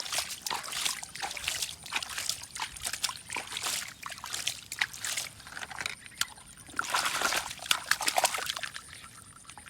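Water sloshing and splashing as a toy truck is washed, with many small irregular clicks and knocks.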